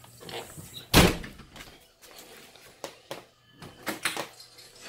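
A single loud thump about a second in, then scattered lighter taps and clicks.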